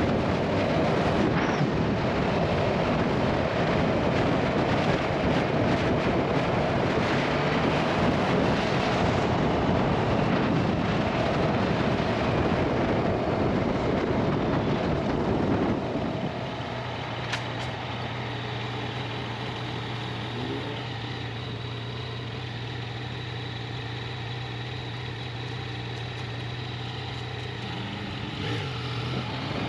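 2021 Yamaha XSR900's inline-three engine running under way, mixed with heavy wind noise. About halfway through, the noise drops sharply and the engine settles to a steady idle as the bike comes to a stop.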